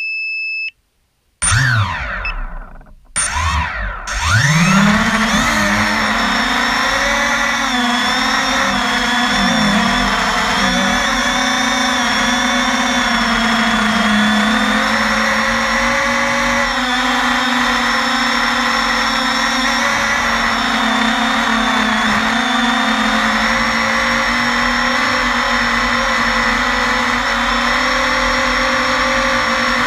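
A short beep, then the quadcopter's four MultiStar 2150 Kv brushless motors spinning Gemfan 5-inch props, heard close up: two quick throttle blips whose whine rises and falls, then about four seconds in the whine climbs and holds as a steady buzzing drone in flight, wavering slightly with throttle.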